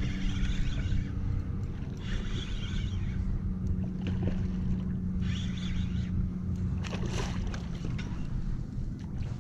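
Daiwa BG 3000 spinning reel cranked in spurts of about a second while fighting a hooked bluefish, over wind rumble on the microphone and a steady low hum. A sharper splash comes about seven seconds in as the bluefish thrashes at the surface beside the kayak.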